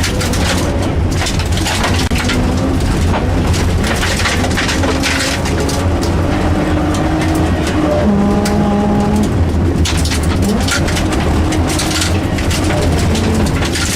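Rally car's engine at full effort on a stage, heard from inside the car, revving up and dropping back with each gear change, over continual tyre and road noise.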